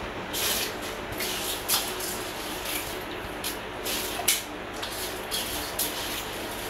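Handfuls of rice dropped from a steel bowl into a pot on the gas stove: a string of short splashy hisses, several a second or so apart.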